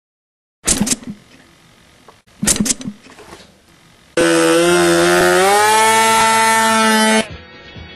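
Small engine of an RC model plane running fast with a steady buzz for about three seconds, rising a little in pitch midway, then cutting off suddenly. Before it come two short loud bursts.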